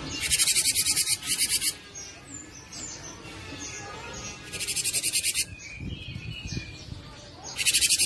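Cinereous tit singing: three bursts of fast, evenly repeated high-pitched notes, each about a second long, with softer whistled notes between them.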